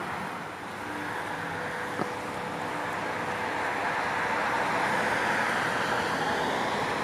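A car passing on the road, its tyre and engine noise swelling to its closest about five seconds in and then easing off.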